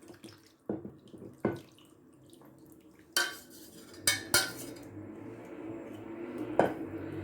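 Kitchen utensils and cookware clinking and knocking: a spoon striking and scraping a bowl and dish as sauce is poured and spread over food in a baking dish. A steady low hum comes up about five seconds in.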